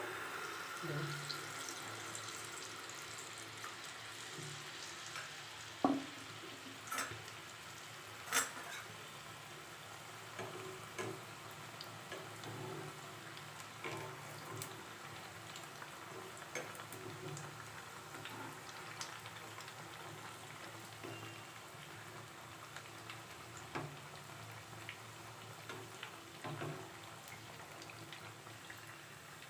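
Malpua batter of semolina and flour deep-frying in hot oil: a steady sizzle with crackles, loudest just after the ladleful goes in and easing down over the first several seconds. A few sharp clicks, the loudest about six seconds in.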